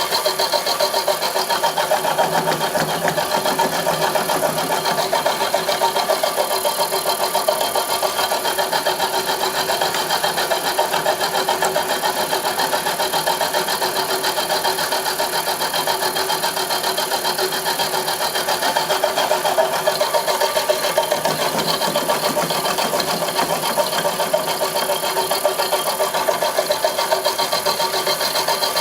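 A homemade milling machine running steadily, a fast, even mechanical buzz that holds level throughout.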